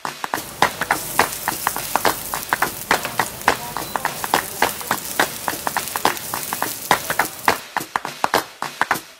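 Oil sizzling in a frying pan as diced ham and onion cook, the sizzle stopping near the end. Sharp taps repeat throughout.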